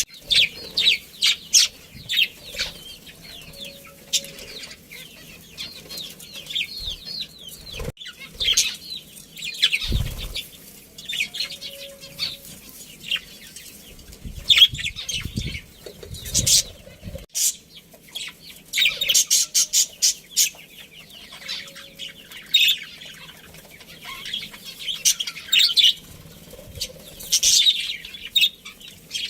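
A colony of budgerigars chirping and chattering in quick, irregular bursts, with wings flapping now and then.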